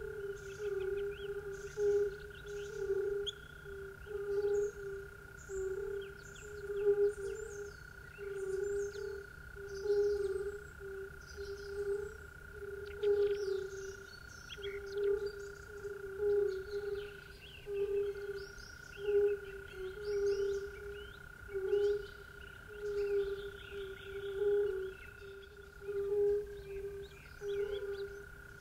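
Frogs croaking over and over in a slow, even rhythm, with birds chirping irregularly over a steady high-pitched drone.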